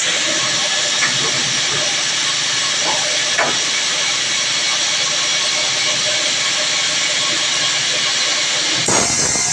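A woodworking power tool running steadily with a loud, even hiss. The sound shifts abruptly near the end.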